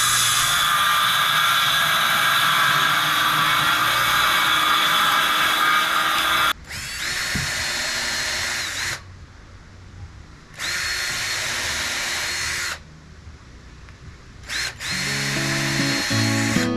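Power drill running: one long continuous run, then several trigger-pulled runs of a couple of seconds each that spin up and wind down, with short pauses between.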